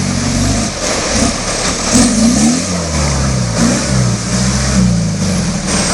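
Off-road 4x4's engine revving up and down repeatedly under load, its pitch rising and falling several times.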